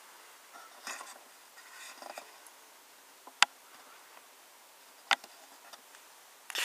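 Faint rubbing and handling noises from a small metal storage tin being turned in the hands, with two sharp clicks, one about halfway through and another under two seconds later.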